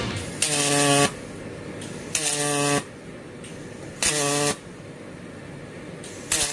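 Handheld spot welding machine firing four welds, about two seconds apart. Each weld is a half-second electric buzz, a pitched hum with a hiss over it.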